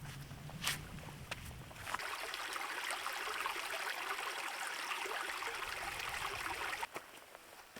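Small stream of water trickling over rocks. It comes in abruptly about two seconds in as a steady rushing hiss, then cuts off suddenly near the end. Before it there is a low rumble and a single sharp click.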